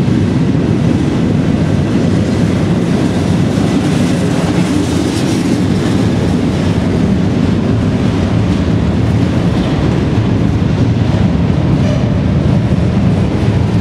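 Slow, heavy freight train passing close by inside a rail tunnel: a loud, steady rolling noise from the train that does not let up.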